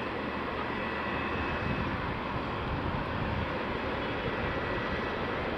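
Steady jet engine noise of a Boeing 777-300ER airliner, an even rush with a faint high whine running through it.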